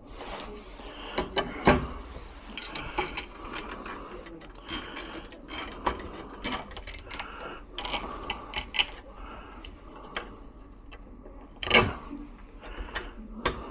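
Irregular metallic clicks, taps and rattles of door lock hardware being handled and fitted, with two louder knocks, one near the start and one near the end.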